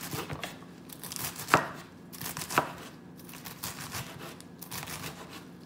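Knife cutting romaine lettuce on a wooden cutting board: crisp crunching and rustling of the leaves, with two sharper knocks of the blade on the board about one and a half and two and a half seconds in.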